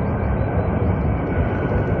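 Ilyushin Il-96-300's four PS-90A turbofan engines during landing: a steady, loud rumble with a faint high whine running through it.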